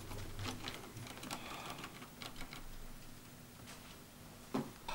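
Typing on keyboards: a run of quick, irregular key clicks, with one louder knock near the end.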